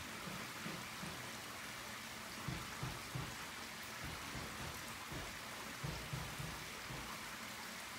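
Small waterfall splashing over rocks into a shallow pool: a faint, steady rush of water with uneven low-pitched bumps underneath.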